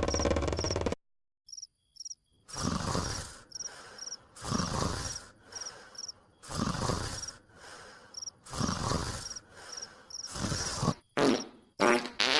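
Cartoon snoring: a loud snore swells and fades about every two seconds, with crickets chirping softly between snores, and the snores come quicker near the end. A louder sound cuts off about a second in, before the snoring starts.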